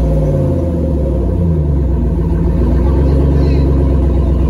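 Pickup truck engine running loudly, its pitch dropping and swelling again in the first second or so before holding at a steady idle.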